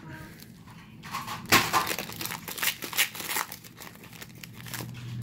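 Foil wrapper of a football trading-card pack crinkling and crackling in the hands as it is opened and crumpled, loudest about a second and a half in.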